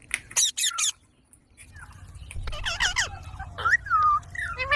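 Baby Indian ringneck parrot calling: a few sharp, high squawks at the start, a short pause, then a busy run of chirps and squawks that glide up and down in pitch.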